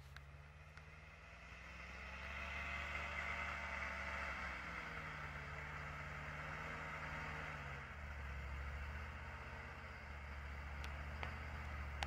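Engine of a loaded off-road logging truck running under load as it approaches through snow, a steady low drone with a hiss over it that grows louder after about two seconds. The engine note drops a step about halfway through and again near eight seconds in.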